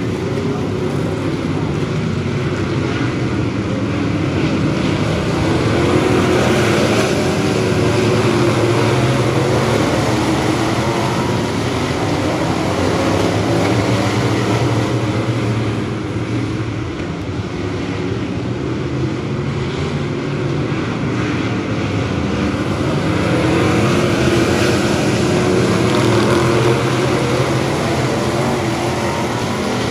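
A field of bomber-class stock cars racing on a dirt oval, many engines running together under throttle. The engine noise swells louder twice, about six seconds in and again about twenty-four seconds in.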